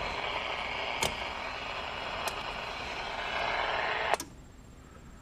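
Static hiss from a Palomar 5000 CB radio's speaker, with a couple of faint clicks, cutting off with a click about four seconds in.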